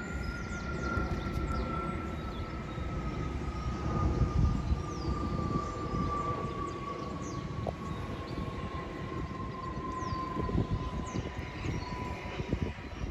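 Steam train running, with a low rumble and a single steady whistling tone that slides slowly down in pitch throughout.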